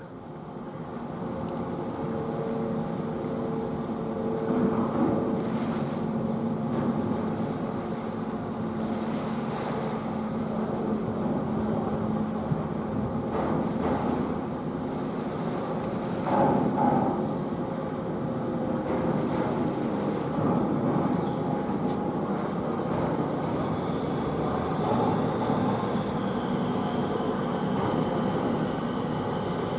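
Dredger's engines and machinery running with a steady droning hum, with wind on the microphone. A high whine joins in over the last several seconds.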